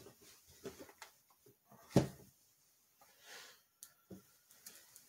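Faint knocks and taps of cardboard cake-mix boxes and tin cans being set down and moved on a tabletop, with one sharper knock about two seconds in.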